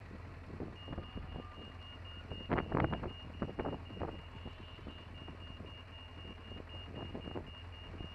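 Pedestrian crossing signal beeping rapidly, about four high beeps a second, while the green man shows. Under it a motorcycle engine idles in a low steady rumble, with a few louder thumps around two and a half to three seconds in.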